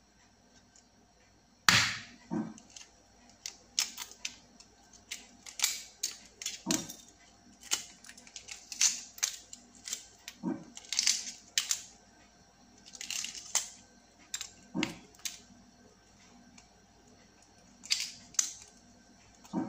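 A hard-boiled egg's shell being cracked and peeled by hand: a sharp tap about two seconds in, then small crackling clicks and crunches at irregular intervals as the shell breaks away.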